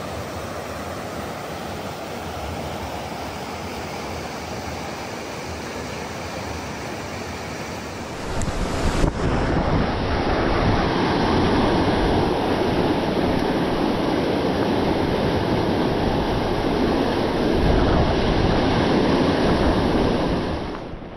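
River rapids rushing over boulders in a steady roar of whitewater, growing louder about eight seconds in as the sound comes from right beside the rapids.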